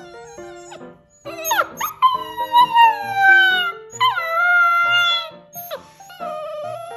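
Samoyed puppy howling over background music. A sharp upward yelp opens into a long howl that falls in pitch, then comes a second long falling howl, then shorter, quieter howls near the end.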